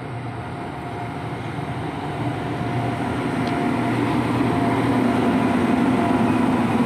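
Indian Railways WAP-7 electric locomotive approaching and passing close by: a steady hum with wheel rumble, growing steadily louder as it draws level.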